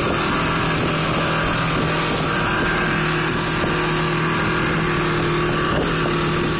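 Outboard motor on a small motorboat running at a steady speed, with a constant engine tone and water rushing past the hull.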